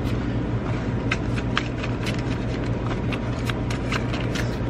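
Tarot cards being shuffled by hand: a run of light, irregular paper clicks and snaps over a steady low hum.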